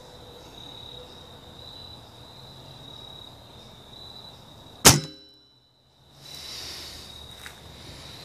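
A compound bow is shot about five seconds in: one sharp, very loud snap of the string and limbs with a brief ringing afterwards, picked up by a phone mounted on the bow itself. The recording drops out for a moment just after the shot. Before it, a steady high insect drone.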